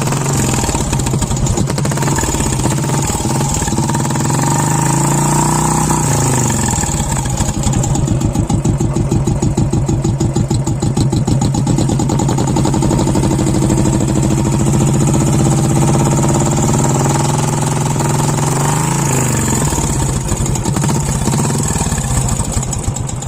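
Royal Enfield Bullet 350 single-cylinder engine running through an aftermarket Indori silencer, its exhaust thump revved up and held high through the middle, then dropping back and rising again near the end.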